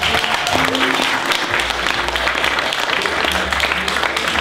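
A roomful of wedding reception guests applauding steadily, dense clapping that runs without a break, greeting members of the wedding party as they are introduced. Music plays underneath with low held bass notes.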